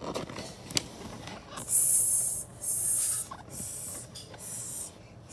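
A page of a paperback book rustles as it is turned, then a person hisses 'sssss' four times in imitation of a spray can, the first hiss the loudest.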